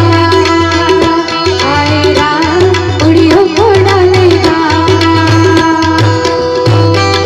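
Live Indian instrumental passage: tabla playing a steady rhythm under a melody line that bends in pitch, with harmonium among the accompanying instruments.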